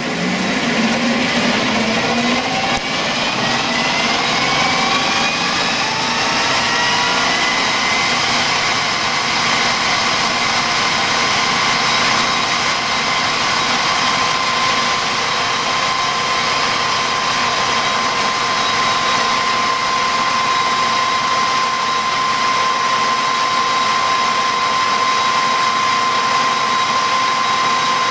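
Colchester metal lathe running up to 1200 RPM, its drive whine rising in pitch over the first several seconds. It then holds a steady high whine as a boring bar cuts an internal taper in brass stock.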